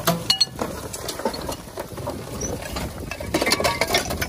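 Scattered metallic clinks, knocks and rattles from an old steam locomotive's iron parts as it is dragged out of the ground, with a brief ringing clink near the start and a denser run of knocks about three and a half seconds in.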